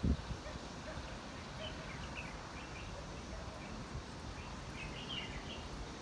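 Scattered short bird chirps over a steady background hiss, with one brief low thump right at the start.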